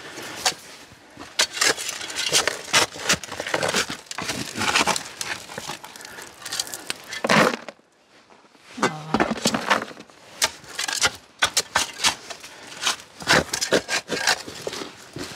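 Hand digging in soil: a digging tool scraping and knocking in quick, irregular strokes, with a brief pause about eight seconds in.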